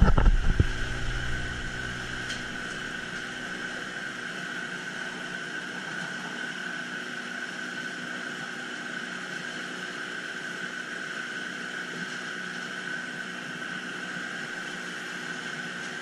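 Small outboard motor running at a steady speed, a constant whine that holds one pitch throughout.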